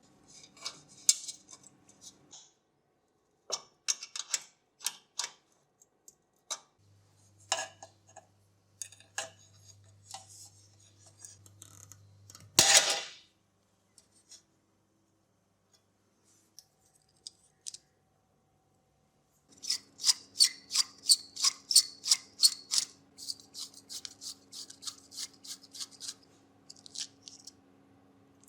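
Hand-tool work: a scatter of sharp clicks and snips, one louder scraping burst about halfway through, then a quick regular run of clicks, about three a second, over a faint steady hum in the last third.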